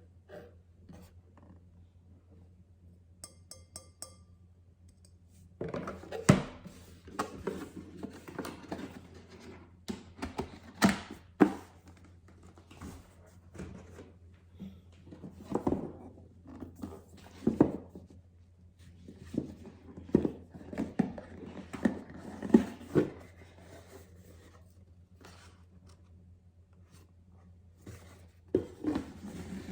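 Things being handled close by: irregular knocks, clicks and rustling that start about six seconds in and come in clusters with short pauses, over a steady low hum. A few brief high beeps come just before the handling starts.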